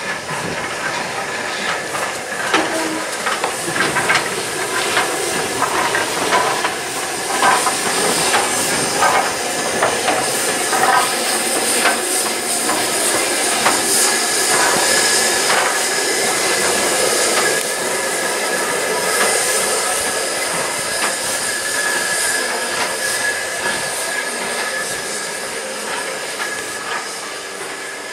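GNR N2 0-6-2 tank steam locomotive No. 1744 passing close by: steam hissing with irregular metallic clanks from its wheels and running gear on the rails. Loudest about halfway through as it goes past, then easing.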